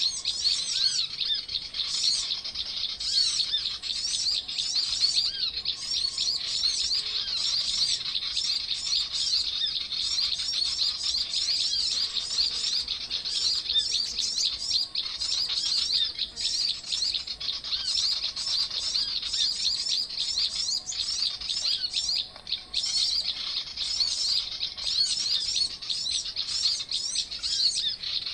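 Dense, unbroken chorus of many small birds chirping rapidly and high-pitched, at a steady level throughout.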